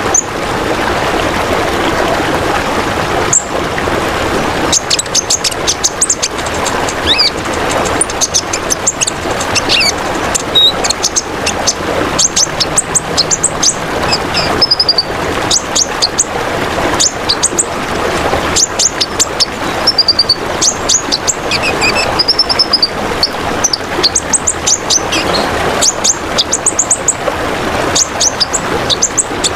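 Songbird singing a fast run of high chirps, trills and short whistled notes, over the steady splashing trickle of running water.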